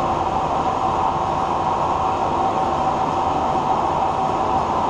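Large 36x144 engine lathe running loudly while cutting steel with a carbide insert, belt-driven by a 5 horsepower electric motor. Its gearing and drive make a steady whine over a constant rumble.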